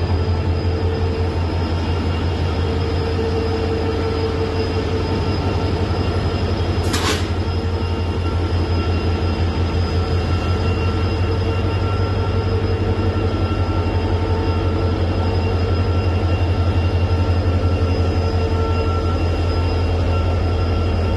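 WDP4D diesel locomotive's EMD two-stroke engine running steadily with a deep, finely pulsing hum and a few steady higher tones over it. A brief high-pitched sound cuts through about seven seconds in.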